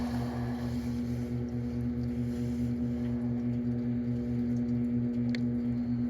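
Microwave oven running with a steady hum over a low drone that pulses about four times a second, melting candy on its turntable. A single sharp tick comes about five seconds in.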